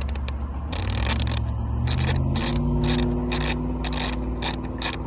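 Half-inch stubby ratchet with a 72-tooth mechanism being worked back and forth, its pawl clicking in repeated short bursts over a steady low hum.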